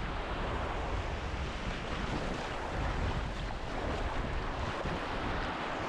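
Strong wind buffeting the microphone with a steady low rumble, over the wash of breaking surf.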